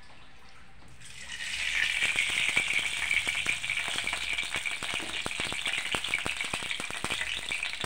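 Oil sizzling and crackling with many small pops in a hot kadhai, starting about a second in.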